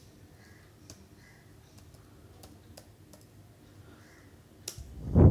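Scattered keystrokes on a computer keyboard as a search is typed, faint single clicks a few per second. Near the end there is one loud, low thump.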